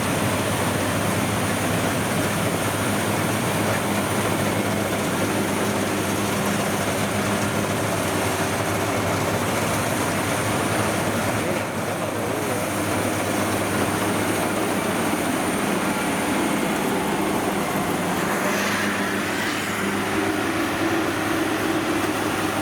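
Rice combine harvesters' diesel engines running steadily in the field, with a steady high whine over the engine hum.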